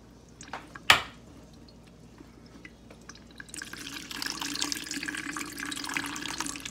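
Pineapple juice pouring from a can in a thin stream into a plastic colander, splashing steadily from about three and a half seconds in. A single sharp knock about a second in.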